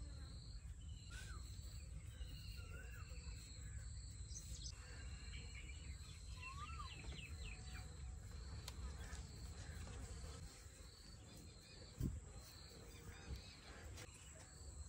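Quiet outdoor ambience: an insect chirping in a steady repeating pulse, with a few faint bird-like chirps and a low rumble that fades out about ten seconds in. A single soft low thump comes near the end.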